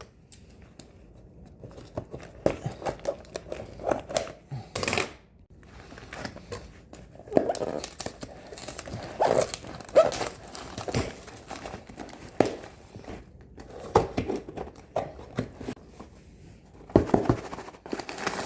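A shipping box being opened by hand: irregular tearing, crinkling and rustling of packaging, with scattered small knocks.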